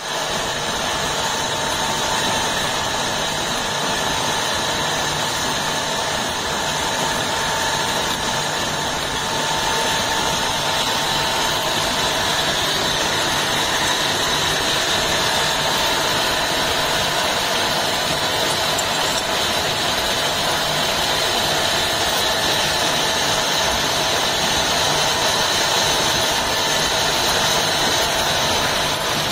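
Pillar drill running steadily, its 32 mm twist drill, ground flat at the tip, cutting a counterbore into a metal plate: a steady machine drone with steady whining tones over it.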